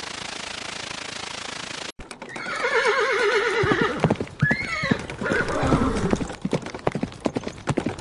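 A steady hiss for the first two seconds, then a horse whinnies with a long wavering neigh, followed by a quick run of hoof clip-clops.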